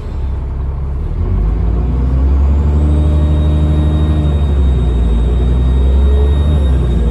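Cummins ISBe diesel engine of a Transbus Trident bus running and pulling harder about a second in, with a thin, steady high whine from the turbocharger coming in partway through.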